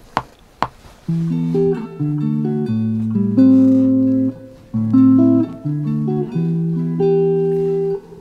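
Electric guitar playing a slow phrase of held chords and single notes, with a couple of muted string clicks before the first chord and a short break about halfway through.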